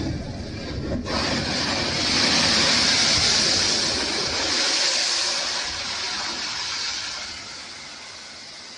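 Strong wind gusting: a rushing noise surges suddenly about a second in, is loudest for a few seconds, then dies down near the end.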